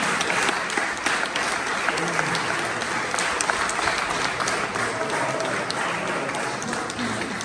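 Audience applauding steadily, with voices talking over it; the clapping eases off a little near the end.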